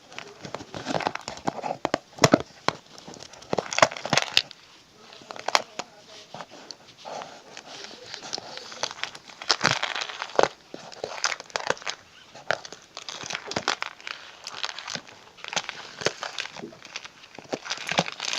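Crunchy slime with beads mixed into it being stirred and worked, giving irregular crackling and sharp clicks.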